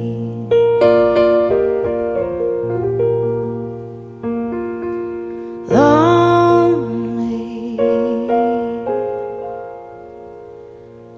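Slow solo piano chords from a ballad recording, with a female voice coming in about halfway through to sing one long held word, "lonely", then the piano carrying on alone and fading.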